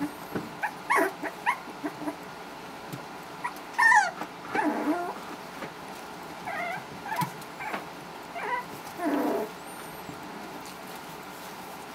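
Four-week-old Havanese puppies whimpering and yipping in short calls, the loudest a high yelp about four seconds in.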